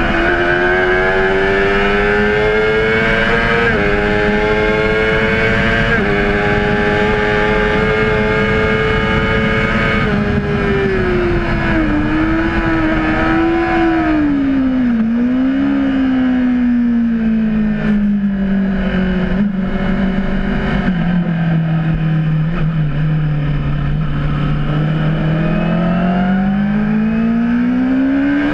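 Honda CBR600RR's inline-four engine running on track. It revs high and climbs with two quick upshifts in the first several seconds, then the revs fall away from about ten seconds in. It stays low through a long stretch and rises steadily again near the end.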